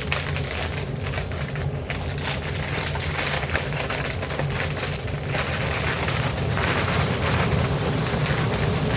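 Plastic bag crackling and rustling as a sewing machine foot pedal is bagged, over the steady hum of a running heater. The rustling gets busier about halfway through.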